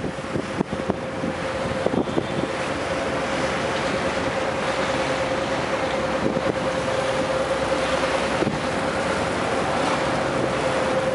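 A boat's engine running steadily with a constant droning tone, mixed with wind rushing over the microphone.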